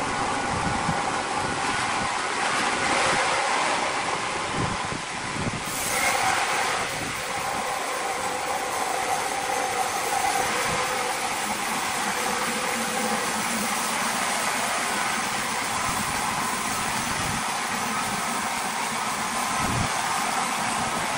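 Large horizontal band sawmill running steadily, its band blade cutting lengthwise through a huge log, with a faint steady tone through the noise. It briefly gets louder about six seconds in.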